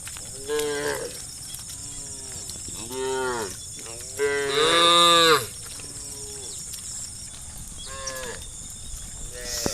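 Cows mooing: about five separate calls, the loudest and longest one about four to five seconds in, with shorter ones before and after.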